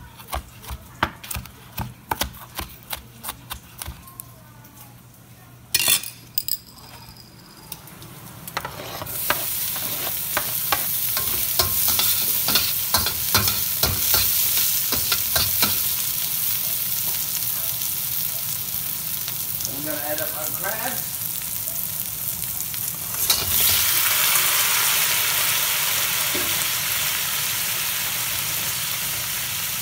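A knife chopping onions on a plastic cutting board in quick strokes, then a steady sizzle of onions, garlic and sausage frying in oil in a hot stainless steel wok, with a spatula scraping and stirring. About 23 seconds in the sizzle grows louder as raw crabs go into the wok.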